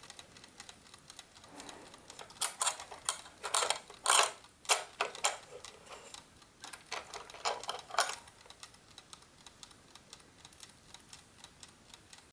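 Irregular sharp clicks and light knocks from the parts of a GARDE classic wooden mechanical chess clock being handled and refitted. The clicks are loudest and thickest in the middle stretch and thin out towards the end.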